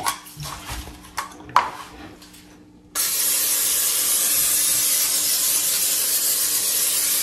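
Aerosol olive oil cooking spray (Carlini) hissing in one long, steady burst that starts suddenly about three seconds in, after a few light clicks as the can is handled.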